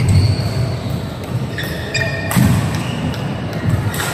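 Badminton rally on an indoor court: sharp racket strikes on the shuttlecock about two and four seconds in, with shoe squeaks and footfalls on the court floor.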